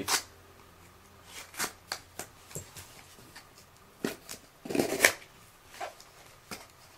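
A small cardboard box being slit open and its flaps pulled back: scattered scrapes, taps and cardboard rustling, loudest about five seconds in.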